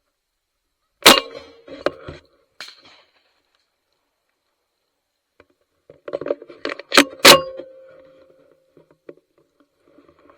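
Shotgun blasts: one loud shot about a second in followed by two fainter cracks, then after a silence a flurry of smaller sounds and two loud shots in quick succession about seven seconds in.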